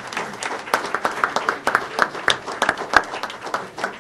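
Small audience applauding, with separate hand claps heard distinctly rather than as one steady wash.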